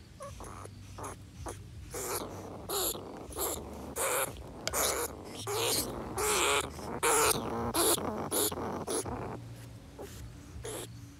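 Rats trapped in a wire cage trap giving a run of short, harsh calls, one after another and irregularly spaced, thickest through the middle of the stretch, over a faint low hum.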